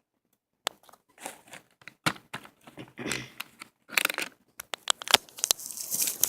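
Toy packaging being torn and crinkled open by hand: irregular tearing and crinkling with sharp clicks and snaps, starting just under a second in and getting busier toward the end.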